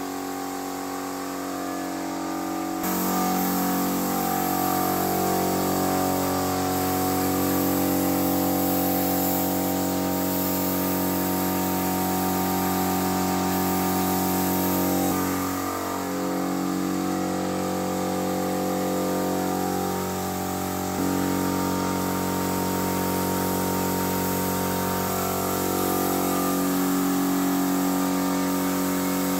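King electric air compressor running with a steady hum, under the hiss of a gravity-feed spray gun spraying a finish. The sound steps up louder about three seconds in and dips briefly twice near the middle.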